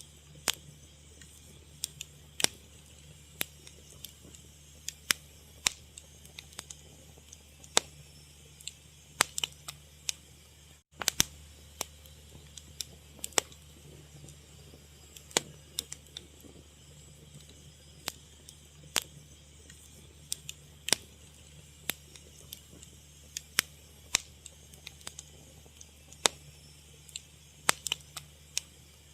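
Fire crackling: irregular sharp pops and snaps, sometimes several close together, over a faint low steady hum. The sound drops out for an instant about eleven seconds in.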